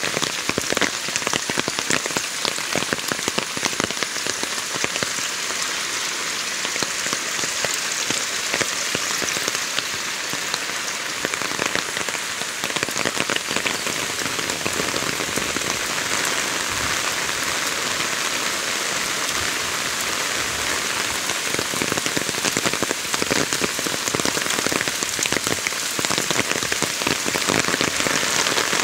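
Steady monsoon rain falling, a continuous hiss of the downpour with a dense patter of close, sharp individual drop hits.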